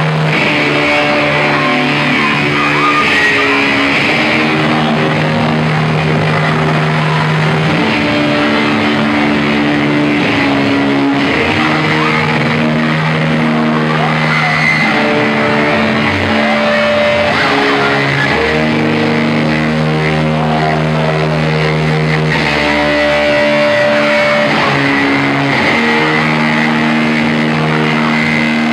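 Live rock band playing loud: electric guitars and bass holding long notes and chords that change every few seconds, over drums.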